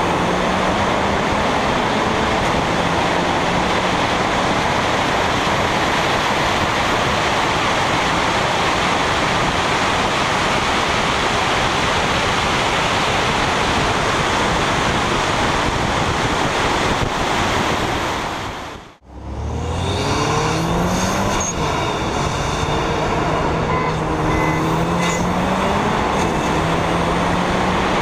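Heavy wind and road noise buffeting a car-mounted camera, over the engine notes of tuned turbocharged cars accelerating hard side by side. A brief dropout comes about two-thirds through. After it, the engine note climbs again, dipping and rising with gear changes.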